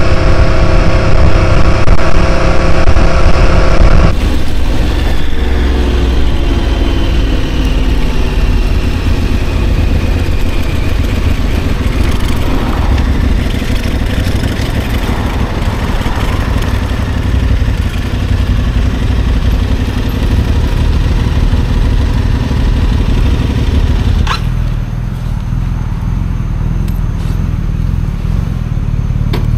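Motorcycle engine heard from the bike itself: it runs at road speed, then about four seconds in the revs drop away and fall as the bike slows. It rolls on at low revs, and after a sharp click near the end it settles to a low, steady idle.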